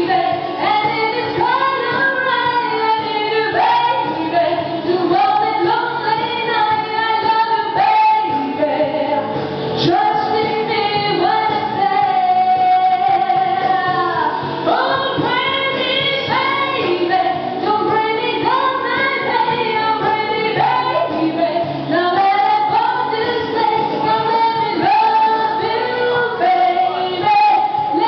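A woman singing karaoke into a handheld microphone, her amplified voice carrying a melody over backing music.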